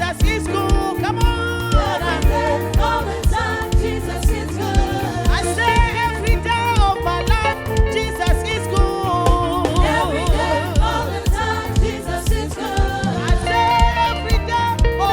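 Gospel praise music with singing voices over a steady beat, about two beats a second.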